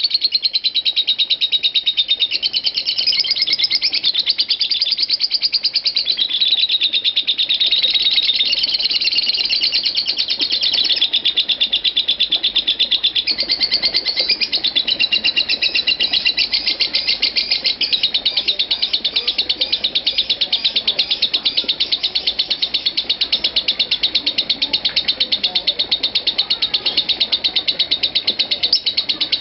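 Masked lovebird's ngekek: an unbroken, very fast, high-pitched chattering trill that steps up and down in pitch every second or two. This is the nonstop 'konslet' style of lovebird song.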